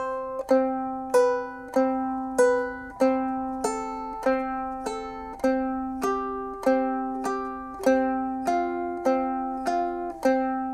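Pineapple-shaped ukulele fingerpicked one note at a time, about every 0.6 s. The thumb alternates on the open third string with the index finger on the first or second string, in a slow melody that walks down and then back up.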